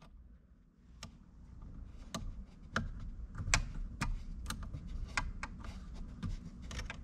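Small hand tool and plastic radar detector mirror-mount bracket clicking as the bracket is adjusted and tightened: irregular light clicks, roughly one or two a second, starting about a second in, over a faint low hum.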